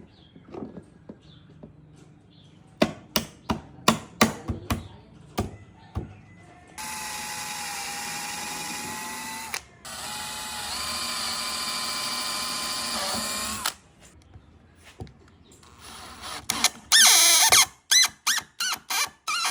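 An electric drill running in two steady runs of about three seconds each, with a string of knocks and clicks before them and a quick series of sharp clicks near the end.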